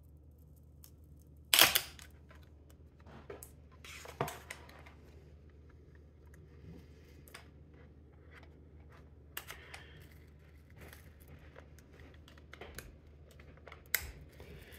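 A glued laptop battery pack being pried up off its adhesive: a sharp crack about a second and a half in, another near four seconds, small scattered clicks and crackles in the middle, and another sharp snap near the end as the glue lets go.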